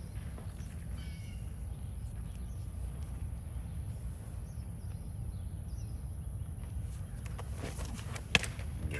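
Steady wind rumble on the microphone, then about eight seconds in a single sharp crack as the pitched baseball reaches home plate, whether off the bat or into the catcher's mitt.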